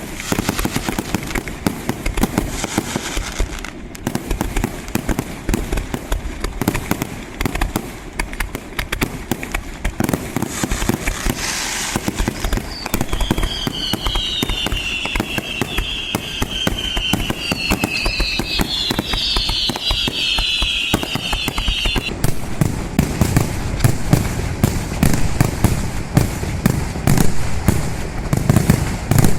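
A fireworks display: a dense, continuous crackle of many small reports, with a cluster of whistling fireworks sliding in pitch through the middle, then heavier low bangs building toward the end.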